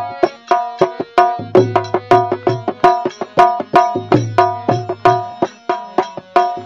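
Instrumental interlude of a Gujarati desi bhajan: tabla playing a steady rhythm of about four strokes a second, with ringing high strokes over deep bass strokes that come in recurring phrases.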